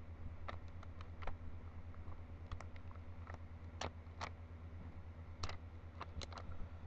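Rubik's cube being scrambled by hand: its plastic layers snap round in quick turns, giving irregular sharp clicks, with a steady low hum underneath.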